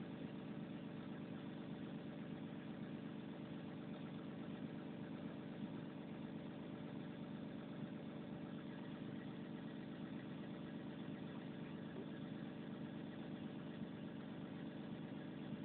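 Diesel engine of a Volvo 360 excavator idling steadily: a low, even hum with no change in speed.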